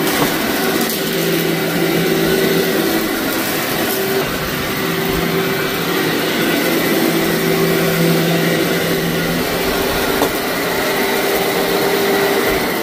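Canister vacuum cleaner running steadily on heavily soiled carpet, its motor humming under a broad rush of suction, with a few brief clicks of grit being pulled up.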